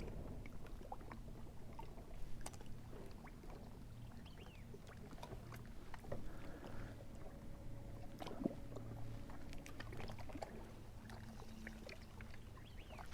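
Faint ambience on a fishing boat: a low steady rumble of water and hull, with scattered small clicks and knocks.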